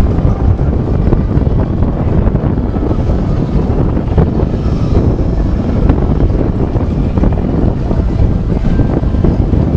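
Wind buffeting the microphone aboard a moving boat on open harbour water: a loud, gusty low rumble with no clear engine note.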